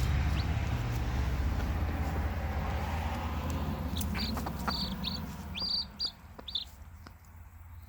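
Outdoor background of a steady low rumble that fades out about six seconds in. Over it a bird calls in a quick run of about six short, high chirps.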